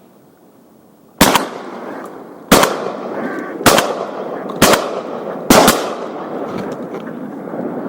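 Five shotgun shots fired in quick succession, roughly a second apart. Each loud bang trails off in a rolling echo.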